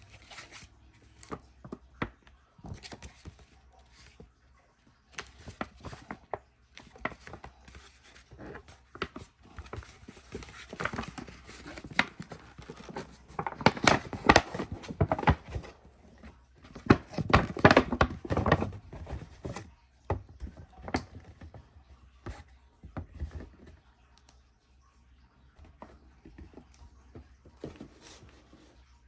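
Paper and cardboard packaging being handled and opened: rustling and crinkling with scattered knocks and taps, busiest and loudest in the middle stretch.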